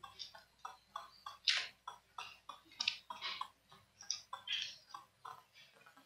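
Faint, irregular small clicks and ticks, a few a second, as fingers work a laptop keyboard's flex ribbon cable into its connector and latch.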